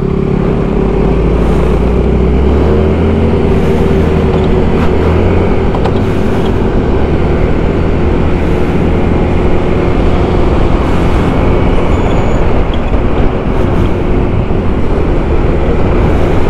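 Motor scooter being ridden in traffic: its engine runs steadily under wind and road noise on the rider's microphone, the engine note dropping a little about five seconds in.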